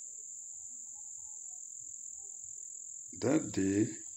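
A steady high-pitched trill of crickets, with a man's voice briefly about three seconds in.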